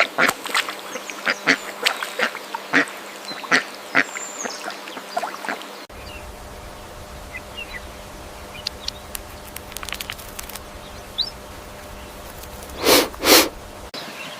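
Ducks quacking: a quick run of short quacks, then, after a sudden change of background, a quieter stretch with a few faint chirps and two loud quacks close together near the end.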